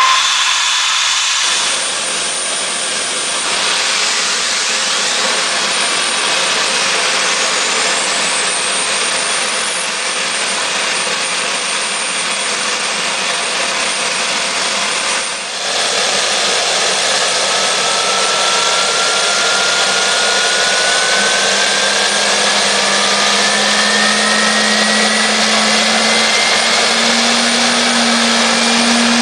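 GE LM2500 aeroderivative gas turbine test cell: for the first half a loud rushing hiss with a thin whistle gliding upward, while liquid propane is purged from the fuel line. About halfway through there is a cut, and the turbine's whine then climbs steadily in pitch as it spools up.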